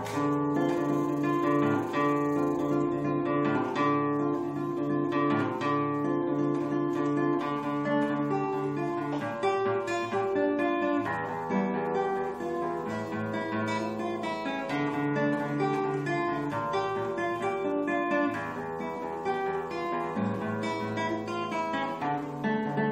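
Guitar playing steadily, a continuous run of chords and picked notes.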